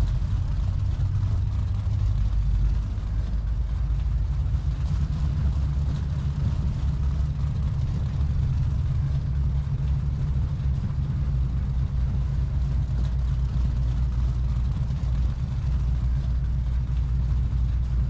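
Triple Mercury Racing 1350 twin-turbo V8 engines of a Fountain 47 powerboat running steadily at low cruising speed, a constant deep drone.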